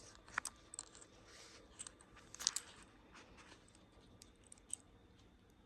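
Faint scattered clicks and rustling from handling a flashlight that won't come on.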